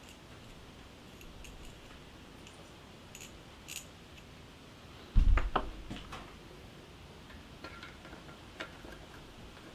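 Small metal bicycle hub parts clicking and clinking as they are handled during reassembly, with one heavy knock followed by a few sharp clicks about five seconds in.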